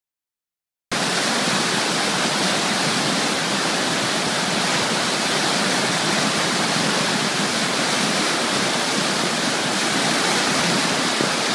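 Steady rush of churning white water, cutting in abruptly about a second in after dead silence.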